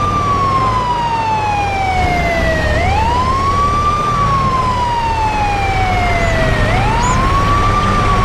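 A siren wailing: a tone sweeps quickly up, holds briefly, then slides slowly back down, and repeats about every four seconds over a steady low rumble.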